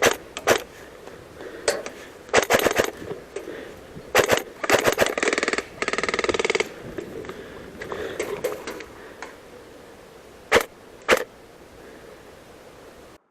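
Airsoft electric guns firing: single shots and short bursts, with one longer full-auto burst of about a second around the middle, then a few single shots.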